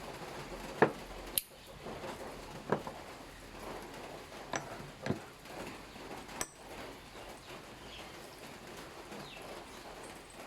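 Several sharp metallic clinks and knocks at irregular intervals, the loudest about a second in, over a faint steady background hiss.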